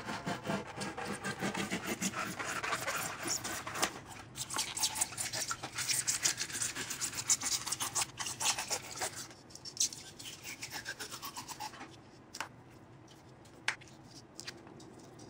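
Rigid closed-cell insulation foam being pried, rubbed and broken by hand off a hardened Rockite casting during demolding: rapid scraping and squeaking of foam for about nine seconds. It then goes quieter, with a couple of sharp snaps near the end.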